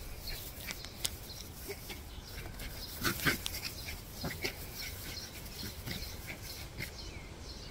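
Two small poodle-type dogs playing on grass, with a few short, faint dog vocal sounds, the clearest about three seconds in.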